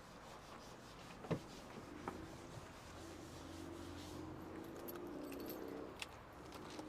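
A few faint clicks and a light jingle of keys as the car's lights are switched on, over a faint low hum.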